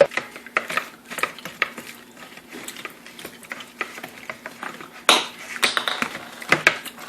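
Spoon stirring and scraping in a bowl, mixing clear glue with glow-in-the-dark paint: irregular clinks and scrapes, with a louder scrape about five seconds in.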